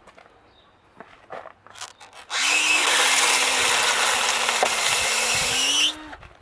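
Electric drill spinning a TERMOpix cutter bit into polystyrene insulation board, milling a recess for a fastener: a loud grinding hiss with a steady motor hum for about three and a half seconds, the hum dipping slightly under load and rising again before it stops. A few light handling clicks come before it.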